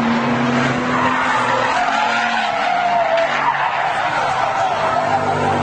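A sports car's engine running as it comes through a corner, then its tyres squealing from about two seconds in as the car slides and spins out; the wavering squeal lasts a few seconds.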